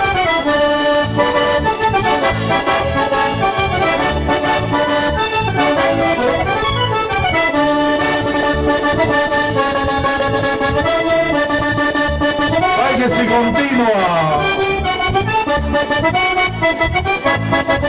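Accordion playing a lively folk dance tune over a steady bass beat, with a sweeping run of notes about thirteen seconds in.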